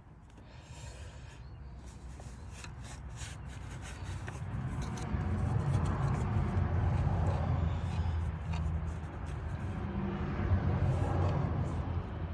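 Rubbing and scraping handling noises with scattered light clicks as a hand works down among engine parts to thread in a spark plug, with a low rumble that grows louder about four seconds in.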